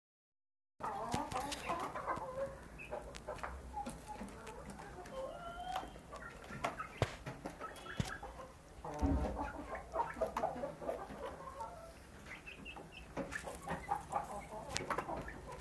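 Young chickens clucking and peeping softly in short, frequent calls while they feed. Sharp clicks are scattered throughout, with a low thump about nine seconds in.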